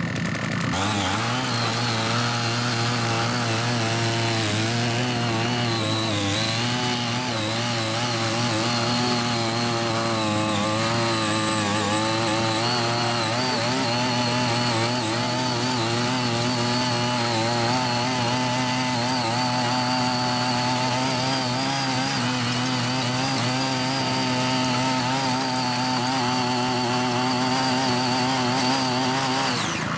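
Small engine of a CHING YEE mini rotary tiller running steadily under load as its tines cut through weeds and soil, its pitch wavering slightly.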